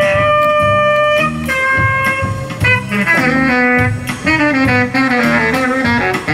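Instrumental jazz: a saxophone holds two long notes over bass and plucked guitar, then moves into a run of quicker notes from about two and a half seconds in.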